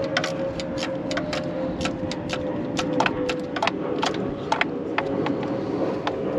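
Ratchet clicking in short, irregular strokes, about three clicks a second, as a spark plug is run in and tightened, over a steady background hum.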